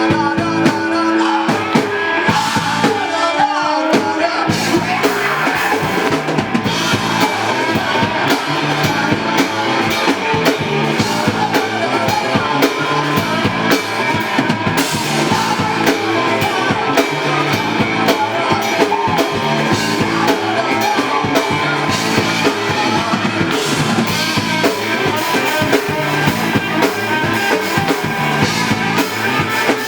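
Live rock band playing an instrumental passage of a song, driven by the drum kit's bass drum and snare.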